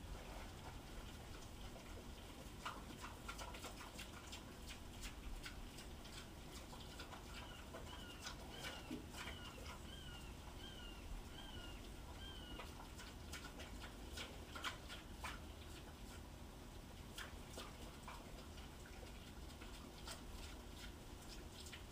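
Pigs eating from metal bowls: faint, irregular chewing clicks and smacks. Near the middle comes a run of about seven short, high chirps, each falling in pitch, spaced a little under a second apart.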